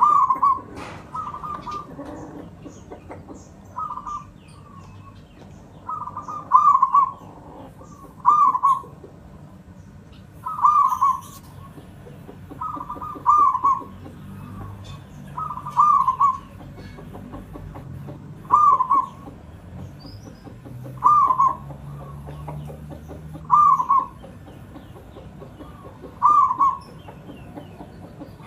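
Zebra dove (perkutut, local Javanese type) cooing: short rolling coo phrases, each about half a second, repeated roughly every two seconds.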